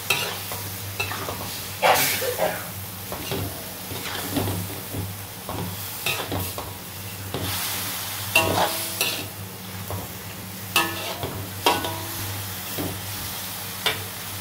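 Metal spatula scraping and clanking against a metal wok as beef liver, long beans and carrots are stir-fried, in irregular strokes every second or two, over a low sizzle of frying.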